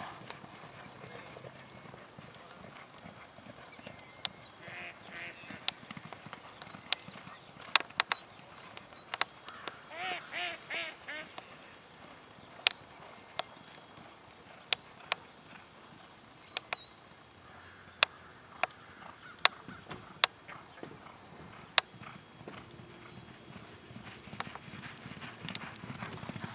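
Outdoor ambience: a bird gives short high chirps about once a second throughout, a few honking calls come at about five and eleven seconds in, and sharp clicks are scattered irregularly.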